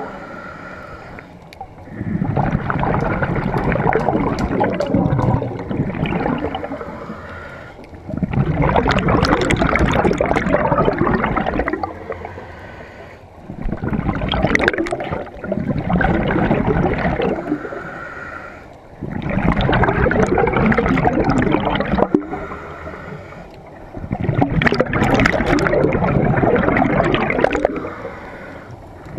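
Scuba diver breathing through a regulator underwater, heard close up: long gurgling rushes of exhaled bubbles about every five seconds, alternating with quieter inhalations that carry a faint regulator whistle.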